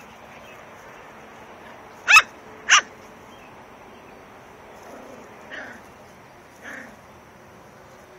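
Small dog barking twice, sharp and loud, about half a second apart, then giving two much fainter, shorter yelps a few seconds later.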